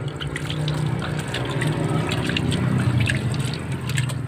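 Water splashed by hand from a bucket onto a motorcycle engine's cylinder and carburettor, rinsing off the scrubbed rust-cleaning paste: repeated splashes and trickles over the metal. A steady low hum runs underneath.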